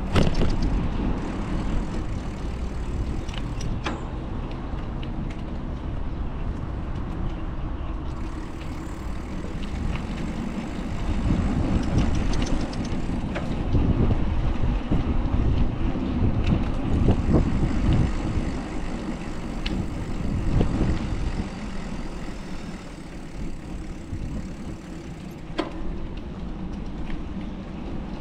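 Road traffic on a city street heard from a moving bicycle: a steady rumble of passing cars and trucks, swelling for several seconds midway, with a few sharp clicks.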